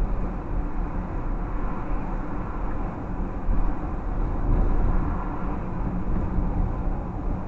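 Car driving along a street, heard from inside the cabin: a steady low rumble of tyres and engine with small swells in level.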